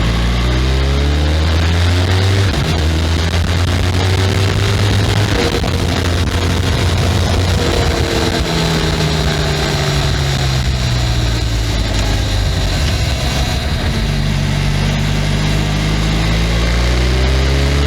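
Benelli 502C's parallel-twin engine through its stock exhaust, ridden on the road. The engine note climbs in rising sweeps broken by a sudden drop, like a gear change, then falls off gradually through the middle and climbs again near the end.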